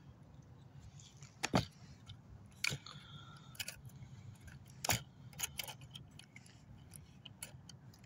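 Scattered sharp clicks and small rattles of drone gear being handled and packed up, with a short tone a little under three seconds in.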